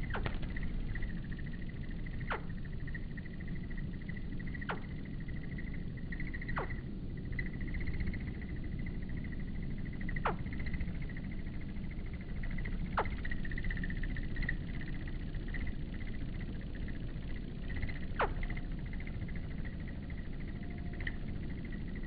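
Evening insect chorus: a steady, slightly pulsing high trill held at one pitch, over a low background rumble. A thin whistle falls sharply in pitch every two to three seconds.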